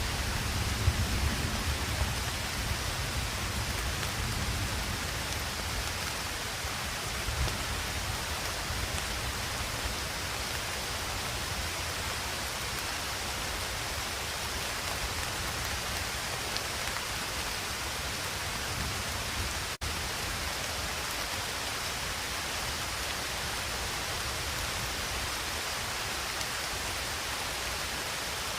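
Steady rain falling, an even hiss with no pattern. A low rumble of distant thunder dies away over the first few seconds.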